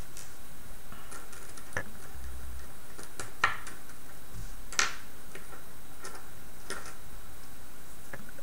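Small plastic gearbox parts and gears being handled and fitted together: a few scattered light clicks and taps, the sharpest about three and a half and five seconds in.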